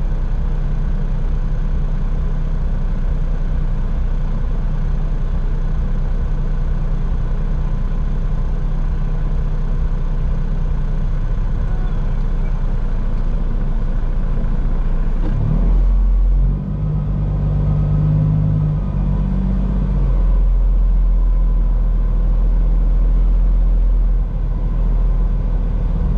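Straight-piped Cummins diesel of a Peterbilt 379 semi idling steadily. A little past halfway it is throttled up to creep the truck forward at walking pace, louder for about eight seconds before easing back toward idle.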